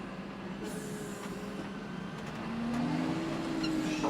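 John Deere tractor engine running steadily, then revving up, rising in pitch and getting louder a little past halfway.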